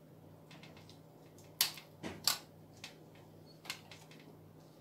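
A few sharp clicks and taps from handling the water purifier's plastic tubing and push-fit fittings, with two louder snaps about a second and a half and two seconds in, over a faint steady hum.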